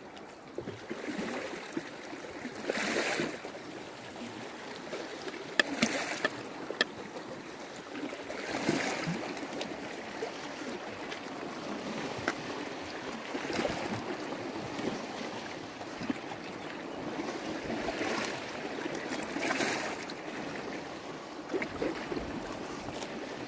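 Sea waves washing against a rocky shore, surging every few seconds, with occasional sharp taps of a knife chopping squid tentacles on an upturned wooden bowl.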